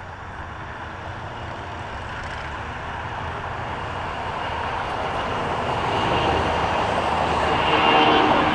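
Boeing 757 freighter's jet engines on departure, the noise growing steadily louder as it comes closer, with steady whining engine tones coming in near the end.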